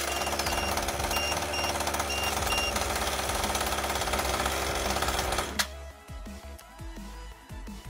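Small nitro RC buggy engine running with a steady buzz, with an electronic beeper pulsing a regular high beep for the first few seconds. The engine cuts off suddenly about five and a half seconds in, leaving faint background music.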